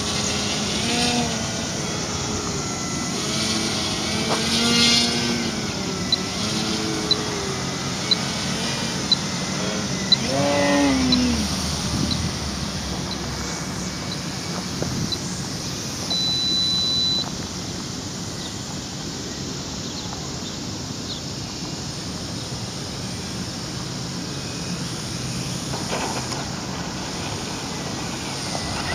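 Brushless electric motor and 13x6.5 propeller of an RC aerobatic plane buzzing in flight, the pitch gliding up and down with throttle and passes during the first ten seconds or so, then steadier. A short high tick sounds about once a second for several seconds in the middle.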